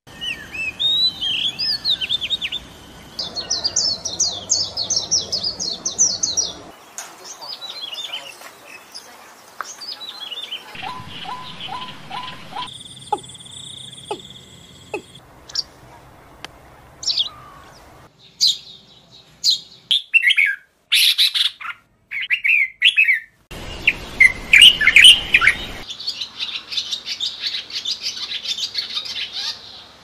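A run of different songbirds' songs and calls cut one after another every few seconds: whistled phrases, fast trills and sharp chirps. Among them are an oriental magpie-robin singing near the start and a white wagtail calling about halfway through.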